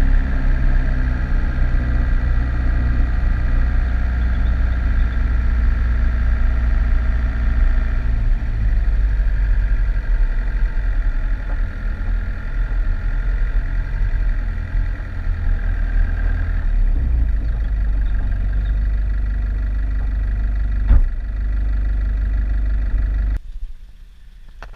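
Four-wheel-drive ute's engine running at low speed, with tyres rolling over a dirt track and a heavy low rumble. The sound shifts twice as the vehicle slows. There is a single knock about 21 seconds in, and the rumble cuts off suddenly near the end to much quieter outdoor sound.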